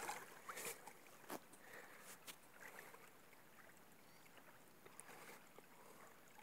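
Near silence: faint sloshing of shallow river water around a wading person's legs, with a few soft clicks in the first two and a half seconds.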